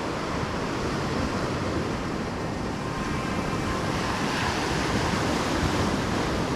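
Ocean surf breaking and washing up over the sand in a steady rush, swelling a little in the second half.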